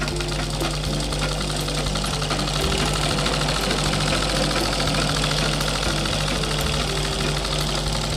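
Domestic sewing machine running at a steady speed, its needle and feed mechanism clattering in a rapid even patter over a low hum as it stitches fabric, a little louder from about two and a half seconds in.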